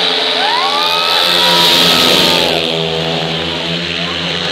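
Speedway bikes' 500 cc single-cylinder methanol engines racing past in a pack. Several engines rev up together with rising pitch as the riders accelerate, louder around two seconds in, then receding.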